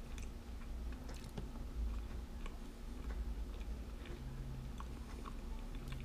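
A person chewing a bite of cinnamon pastry with the mouth closed, with scattered faint crackly clicks.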